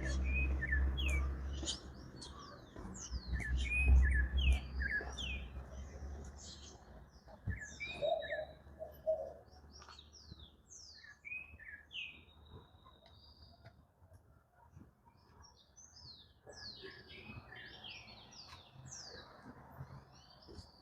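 Birds chirping and calling: many short, quick notes sliding up and down in pitch, coming thick and fast. A low rumble underneath fades out after the first few seconds.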